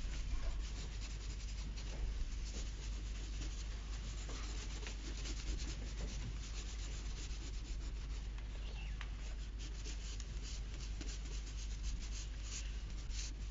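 A pen scratching and rubbing across a large paper flip chart in many short, irregular strokes as a drawing is sketched, over a steady low hum.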